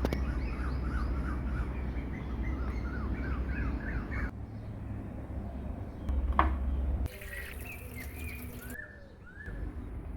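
Small birds chirping in quick, repeated short notes over a steady low rushing noise. The sound cuts abruptly twice, and there is a single sharp click with a brief ring a little after the middle.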